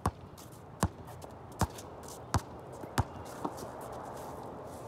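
A basketball dribbled on a hard outdoor court: five sharp bounces about three-quarters of a second apart, then a softer one as the dribbling stops.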